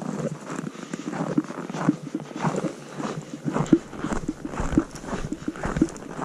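Footsteps in cold snow, a person walking at about two steps a second.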